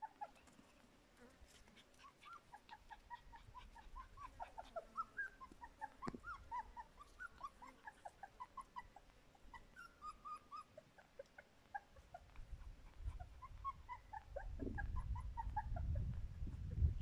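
Australian kelpie puppies whimpering in a long string of short, high, wavering calls, several a second. A low rumble builds over the last few seconds.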